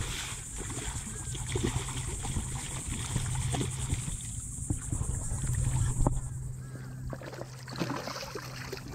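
Water sloshing and splashing around a kayak while a hooked black drum is fought, with scattered small knocks and a steady low hum that stops near the end.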